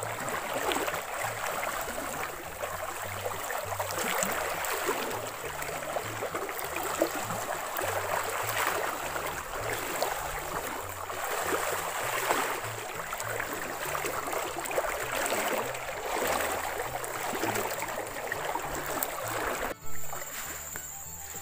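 Water sloshing and splashing as a person wades thigh-deep through a shallow river, swelling with each stride about every two seconds, over background music with a low bass line. Near the end the sloshing cuts off to a quieter scene.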